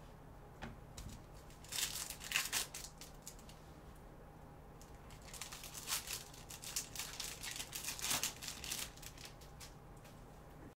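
Crinkling of a plastic trading card pack wrapper in gloved hands as the pack is opened. It comes in two spells: a short one about two seconds in and a longer one from about five seconds in.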